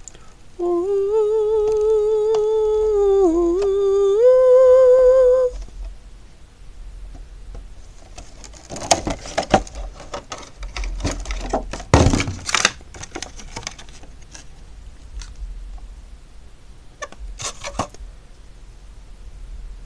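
A man hums a few held notes with a wavering pitch for about five seconds, dipping and then rising to a higher note. Then clear plastic packaging crackles and clicks as it is handled and opened, loudest around the middle, with a short crinkle near the end.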